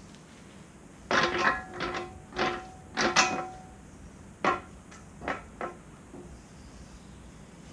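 Heavy steel parts of a backhoe quick-connect coupler, its pins and the bucket knocking together as they are handled into place, each knock with a brief metallic ring. There is a quick run of clanks between about one and three and a half seconds in, then three more single clanks.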